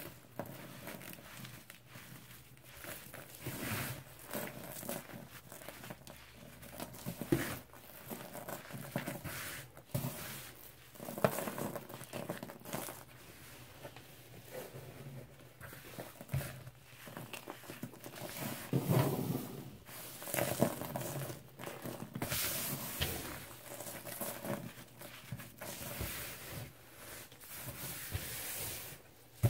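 Hands crushing and crumbling a crisp slab of pressed cleaning powder (baking soda, lemon Comet cleanser and chalk), with irregular crunches and crackles and loose powder pattering down.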